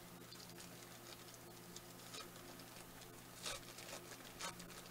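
Faint rustling and crinkling of a plastic trading-card wrapper and cards handled by hand, with two louder scrapes near the end.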